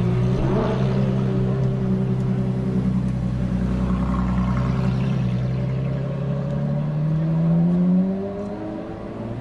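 Ferrari LaFerrari's V12 engine running at low revs as the car pulls away past the listener. Its pitch climbs near the end, then drops off sharply.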